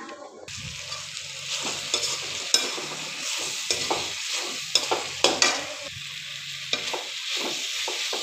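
Chopped brinjal and radish frying in oil in a pan, with a steady sizzle that starts about half a second in. A spatula stirs them, scraping and clicking against the pan at irregular moments.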